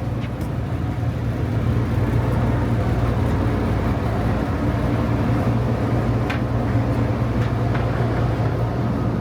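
Steady low drone of a running engine, with a rushing noise over it.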